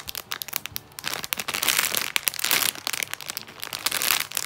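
Clear plastic packaging bag crinkling irregularly as it is handled and turned in the hands.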